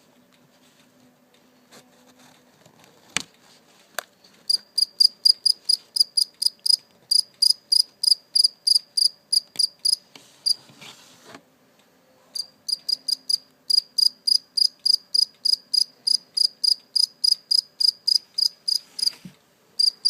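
Male cricket chirping close up: a fast, regular run of short, high chirps, about four a second, that starts a few seconds in, breaks off briefly in the middle and then resumes. The chirps come from the cricket rubbing its wings together.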